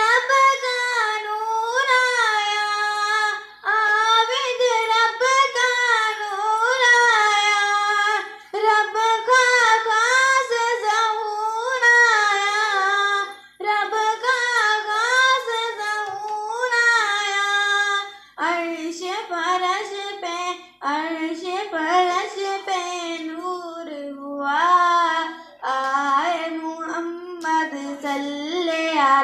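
A girl singing a naat unaccompanied, a devotional chant in long melodic phrases with short breaks for breath. About two-thirds of the way through, her melody drops to a lower pitch.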